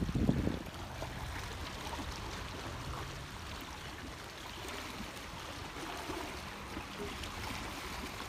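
Small sea waves lapping and trickling against shoreline rocks, a steady quiet wash.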